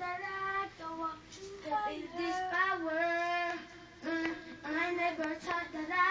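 A child singing into a handheld microphone: phrases of mostly held, slightly wavering notes, with short breaks about two and four seconds in.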